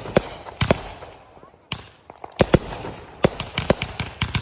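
Fireworks going off: two sharp bangs with crackling tails early on, a burst just before halfway, then a fast string of bangs, several a second, from about halfway through.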